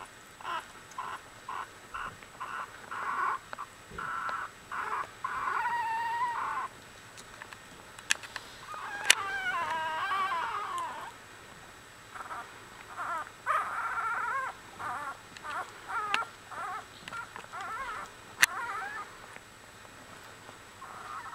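A litter of week-old Australian Bulldog puppies squeaking and whimpering in a string of short, high calls, with longer wavering cries about nine to eleven seconds in and again around fourteen seconds. A few sharp clicks in between.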